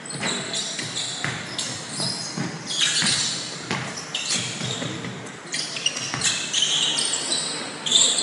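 Basketball game on an indoor hardwood court: sneakers squeaking sharply and irregularly on the floor, and the ball bouncing, echoing in a large gym hall.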